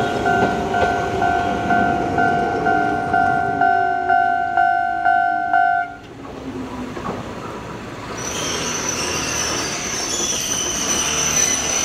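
Japanese railway level-crossing alarm ringing its two-tone bell about twice a second, cutting off about six seconds in, while an Izuhakone Railway 3000-series electric train runs past with its motor whine falling in pitch and its wheels clacking on the rails. A high steady tone and hiss come in near the end.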